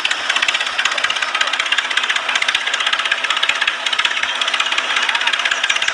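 Toy tractor driving, its small electric motor and plastic gears giving a steady, fast rattling buzz.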